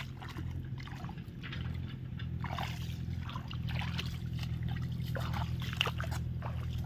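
Footsteps swishing through tall grass: irregular short rustles every half second or so, over a steady low hum.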